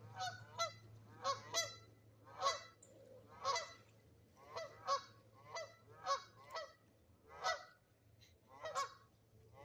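Geese honking: a series of about fifteen short, clear honks, fairly faint, coming one or two a second at an uneven pace.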